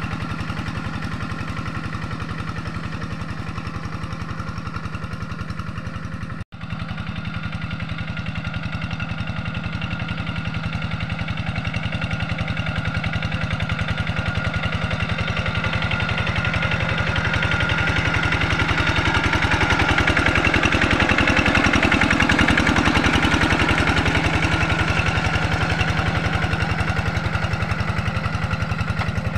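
Two-wheel hand tractor's single-cylinder diesel engine running steadily under load as it ploughs through wet paddy mud. There is a brief cut about six seconds in, and it grows louder past the middle.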